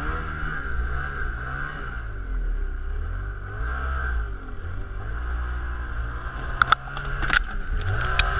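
Ski-Doo Renegade 600 E-TEC snowmobile's two-stroke twin engine running at low speed, its pitch rising and falling with the throttle. Near the end come a few sharp knocks as the sled climbs the ramp into the trailer.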